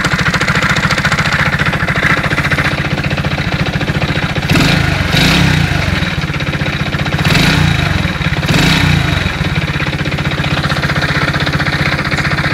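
Alfa Romeo engine idling with a rapid, regular knock from inside the engine, revved briefly a few times in the middle. The knock is bad enough that the engine, at 15,700 km, is being taken apart to find the cause.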